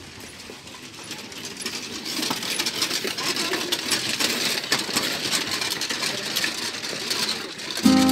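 Metal prayer wheels being turned by hand along a wall, a busy run of small metallic clicks and rattles.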